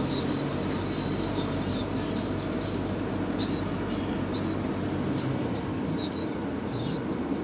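Car engine running and tyre noise heard from inside the cabin as the car rolls slowly forward: a steady low hum.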